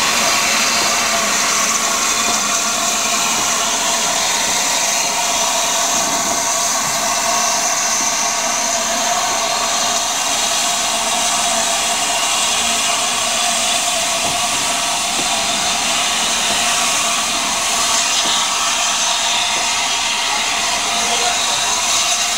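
Steam-hauled passenger train, led by A1 Pacific locomotive 60163 Tornado, passing close by at low speed: a steady, even hiss with the running of the coaches' wheels on the rails.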